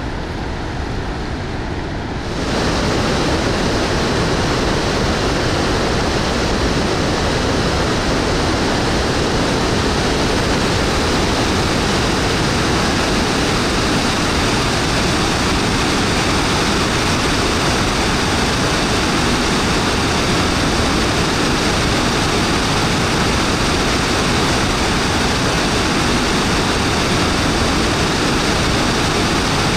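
The Rhine Falls, a large waterfall, with whitewater rushing over rocks in a loud, steady roar that jumps louder about two seconds in as it is heard at close range.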